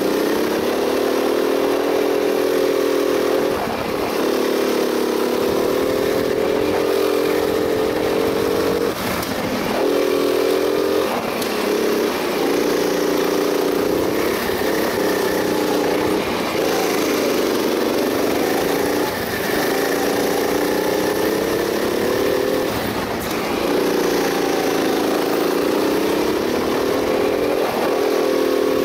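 Go-kart engine heard from on board the kart, its pitch climbing along each straight and falling away when the throttle is lifted for the corners, every two to four seconds.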